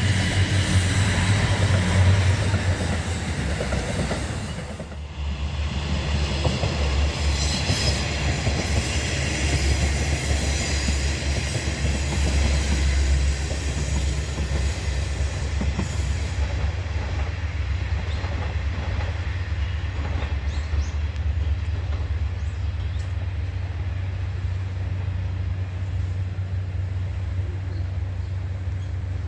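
Diesel railcars running along the track: a steady low engine rumble with the noise of wheels on the rails, and a short dip in level about five seconds in.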